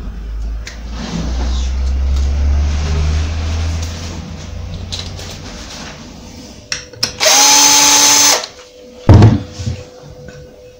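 Power drill running in one loud burst of about a second, followed a second later by a single heavy knock.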